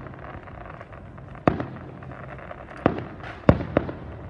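Fireworks going off: four sharp bangs, one about a second and a half in, then three more close together in the last second and a half.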